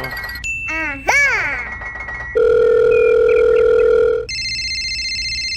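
Electronic sound effects. Quick synthetic swoops slide up and down in pitch at first. About two and a half seconds in, a loud steady buzz holds for about two seconds and cuts off. It gives way to a steady high electronic ringing like a telephone ring.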